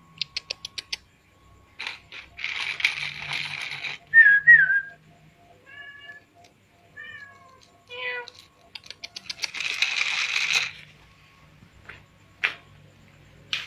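A cat meowing several short times, with a loud high wavering call among them. Two long hissing noises and a quick run of clicks come in between.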